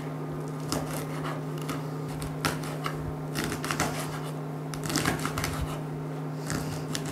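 Knife chopping fresh mint leaves on a wooden cutting board: irregular quick taps of the blade on the board, over a steady low hum.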